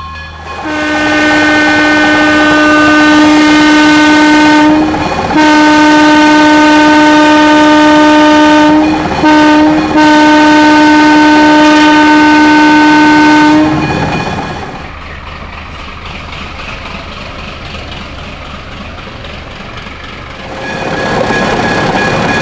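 Horn of Pennsylvania Railroad doodlebug railcar 4666 blowing the grade-crossing signal, long, long, short, long, very loud. After it the railcar runs on along the track, quieter, and its running noise grows louder again near the end.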